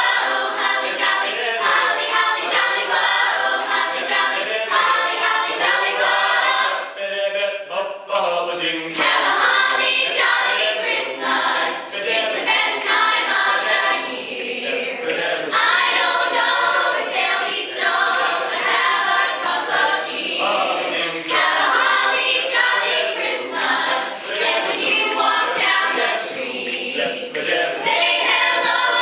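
A mixed choir of young voices singing a Christmas song together, with a short break in the singing about seven seconds in.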